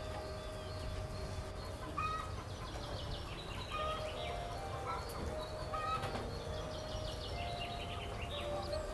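Birds chirping and trilling in short repeated calls over soft, sustained background music.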